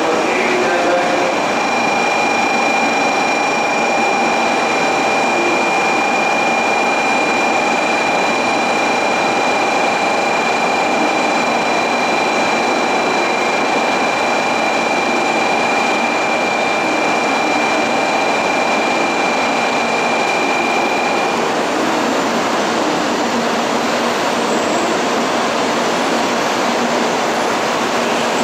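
A 700 series Rail Star shinkansen rolls slowly into the platform and draws to a stop, a steady rumble and hiss. Over it a steady high whine of several tones holds, then cuts off about three quarters of the way through.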